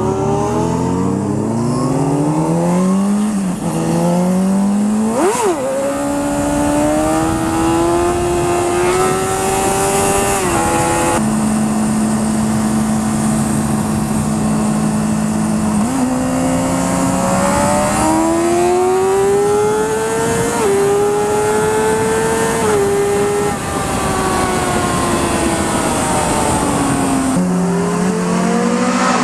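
Honda CBR600's inline-four engine accelerating hard through the gears: the pitch climbs and drops sharply at each upshift, several times in the first half and again later on. Near the middle it holds one steady pitch for about five seconds, then climbs again. Near the end it falls away as the bike slows, and picks up once more at the very end.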